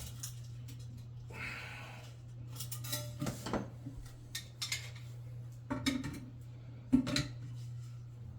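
Small hard plumbing parts and tools clinking and rattling as they are handled, in irregular bursts, over a steady low hum.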